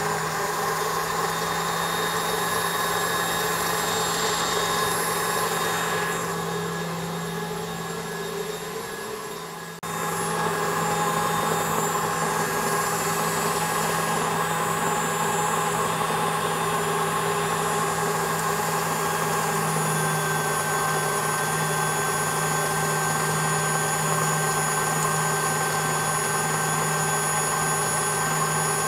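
KitchenAid stand mixer running steadily, its wire whisk beating eggs and sugar in a stainless-steel bowl until they turn thick and pale. The hum dips slightly and jumps back up about ten seconds in.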